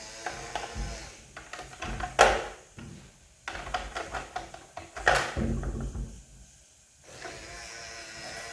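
Plastic toy game mechanism ratcheting in runs of rapid clicks, with two louder plastic knocks about two and five seconds in.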